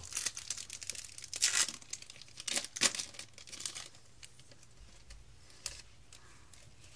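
A Yu-Gi-Oh booster pack's foil wrapper being torn open and crinkled: a run of crackling, rustling bursts for about the first four seconds, then only faint handling of cards.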